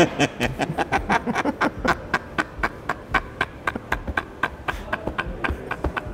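A man laughing in quick, breathy bursts, several a second, without words.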